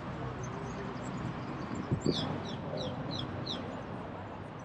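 A bird calling: a run of about five quick, high chirps, each falling in pitch, a little past halfway, over a steady hum of street noise. Two short dull thumps come just before the chirps.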